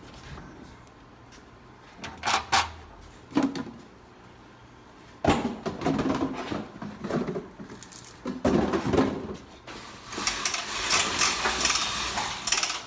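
Knocks and light metallic clattering of parts and tools being handled, busier from about halfway through, with a denser, steady hissing whir over the last few seconds.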